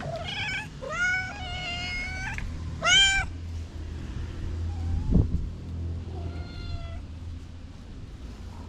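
Cat meowing about five times: a short call, then a long drawn-out one, then a short loud one, with two fainter calls later. There is a low thump about five seconds in, over a steady low rumble.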